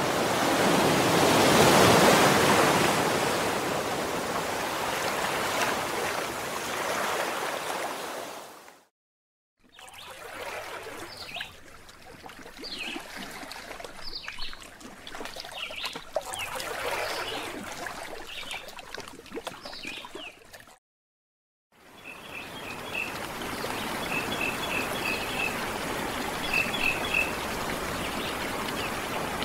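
Ocean surf washing onto a beach in one slow swell that fades out. After a brief silence, birds chirp over gently lapping lake water. After another brief silence, a small waterfall pours steadily while a bird repeats a short high trill.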